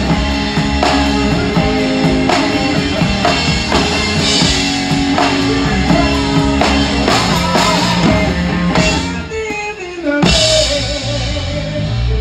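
A rock trio plays live, close to a drum kit with a 26-inch bass drum, toms and large ride cymbals: a steady beat with cymbal strokes over electric guitar and bass. About nine seconds in the playing thins out under a falling note. Just after ten seconds a loud cymbal crash brings the band back in and rings on over held low notes.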